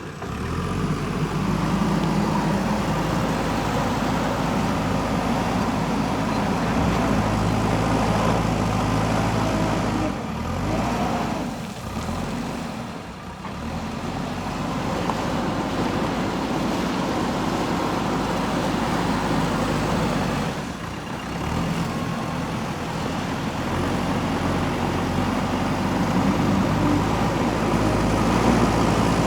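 Diesel engine of a JCB backhoe loader running steadily while working. The engine note dips briefly about a third of the way in and again about two thirds in.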